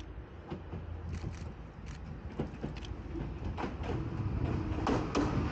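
CRRC 'Bison' multi-system electric locomotive approaching along the track, growing steadily louder as it nears. Sharp clicks sound from the rails, and a steady hum comes in over the last second or so.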